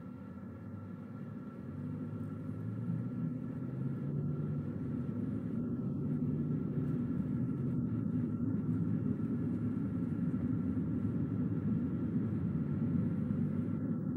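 Car driving on the road: a steady low rumble of road and engine noise that grows louder over the first few seconds, then holds steady.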